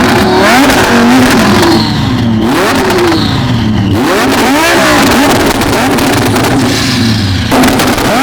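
Lamborghini Huracán V10 engine revving and accelerating hard, its pitch climbing and dropping several times over loud road and wind noise.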